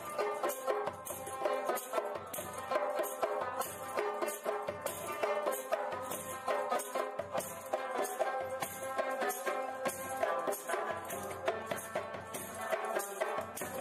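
Background music: a melody over a steady beat of rattle or tambourine-like percussion.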